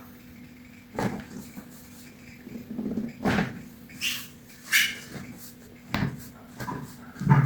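A run of separate knocks and thuds from a chiropractic adjustment: the patient's body being handled and shifted on the treatment table, about six sudden sounds a second or so apart, the loudest near the end.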